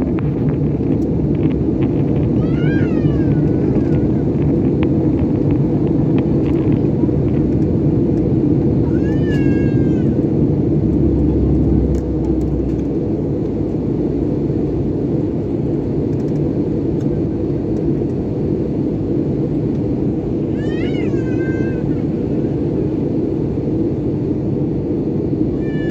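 Steady rumble and rush of a jet airliner cabin in flight, easing slightly about halfway through. Four times a short, high-pitched wavering cry cuts in over it.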